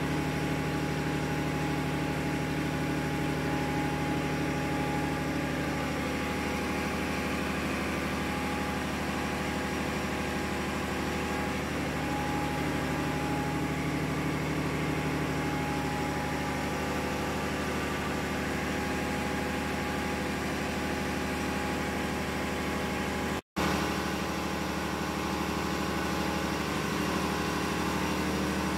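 Steady drone of running ship's engine-room machinery, several constant hum tones with no change in speed. The sound cuts out for an instant about three-quarters of the way through.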